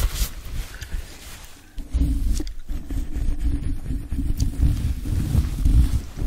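A terry-cloth towel rubbed and scrunched against a microphone's grille, a muffled, rumbling scratch. It is lighter at first, then from about two seconds in the cloth is worked directly on the mic and the sound turns much louder and deeper.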